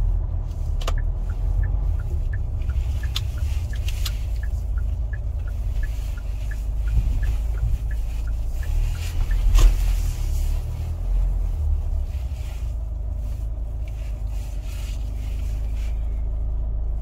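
Inside a car's cabin while driving slowly: a steady low engine and road rumble, with the turn-signal relay ticking about three to four times a second until about eight seconds in, and a single thump near ten seconds.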